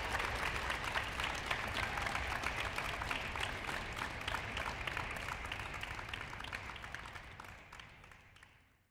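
Audience applauding, dense irregular hand claps that fade away over the last few seconds.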